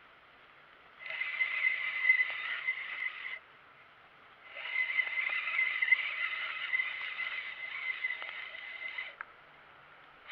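Fishing reel being cranked in two spells, a steady whir with a fixed tone that starts and stops sharply, with a short pause of about a second between: the angler reeling in a hooked piranha.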